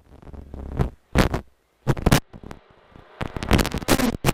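Mini WRC's turbocharged four-cylinder rally engine blipped in short bursts at the start line, then revved hard and continuously from about three seconds in as the car launches.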